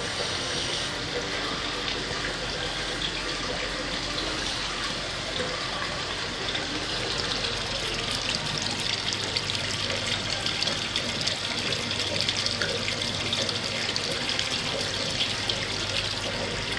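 Water running and splashing into a koi pond basin: a steady rush with fine splashy patter, growing louder from about six seconds in.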